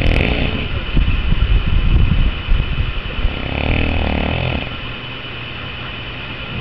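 Heavy snoring with a rough rattle: a long, loud rasping snore over the first three seconds, then a smoother, softer breath about a second later.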